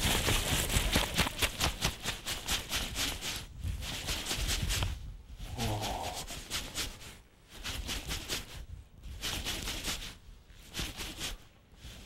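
Fishing reel being wound in fast, rapid runs of clicks with short pauses, as a hooked small black bass is brought up from deep water. A brief voice-like sound about six seconds in.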